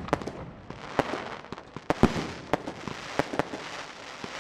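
Professional aerial firework shells bursting in a series of sharp bangs, about one every half-second to second, each one echoing out.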